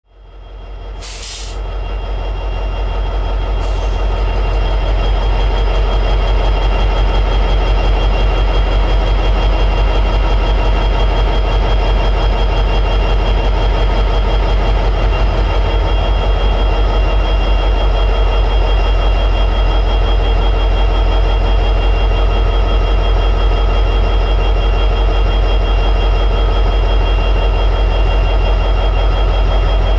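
EMD 710G3B 16-cylinder two-stroke diesel prime mover of an SD60E locomotive running steadily at high idle: a deep, even throb with a steady whine above it. It fades in over the first few seconds, with a short hiss about a second in and a fainter one near 4 s.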